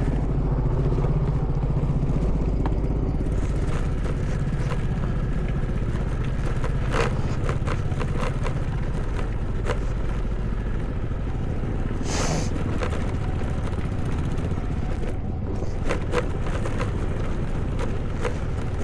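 A two-wheeler's engine runs steadily at low speed over a rocky off-road track, with scattered knocks and clatter from the stones. There is a brief burst of hiss about twelve seconds in.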